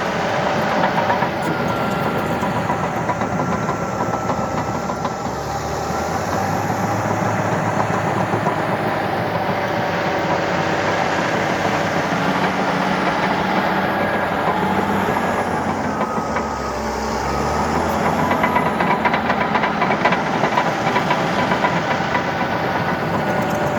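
Heavy diesel earthmoving machinery running at work, a bulldozer and an articulated dump truck, with a steady engine note throughout. A deeper rumble swells about two-thirds of the way through.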